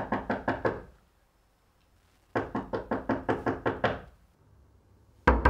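Fist knocking rapidly on a wooden door, in three quick bouts of several knocks each; the last bout starts near the end and is louder.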